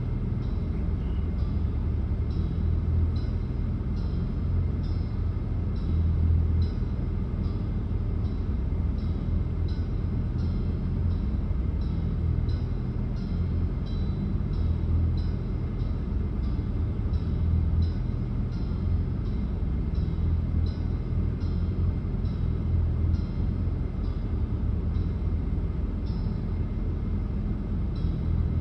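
Steady low rumble of a running vehicle, pulsing slightly, with faint regular ticking about twice a second.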